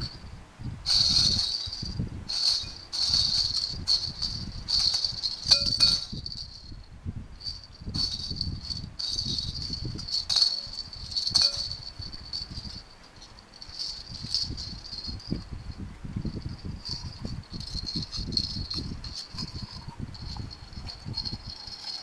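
Small plastic jingle balls with bells inside jingling in irregular bursts as they are squeezed inside a lump of slime, over the soft squishing of the slime in the hands.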